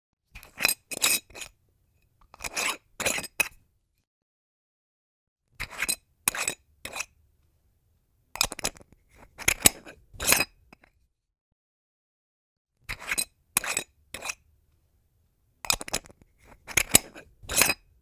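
Jar and container handling sound effects: six separate short bursts of clinks and scrapes, each a second or two long, with silence between them.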